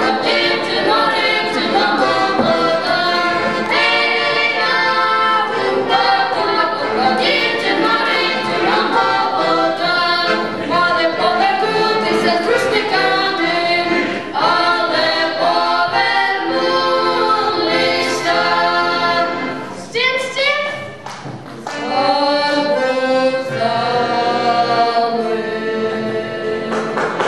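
A trio of boys singing a song together, accompanied by a button accordion. The sound dips briefly about twenty seconds in.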